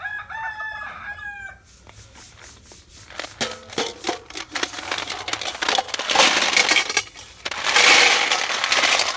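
A rooster crows once at the start. Then snail shells clatter and rattle against steel as a plateful of snails is tipped into a stainless steel bowl, loudest near the end.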